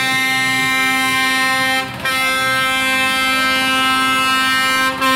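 Truck horn held in long, steady blasts on one unchanging tone, briefly broken about two seconds in and again near the end.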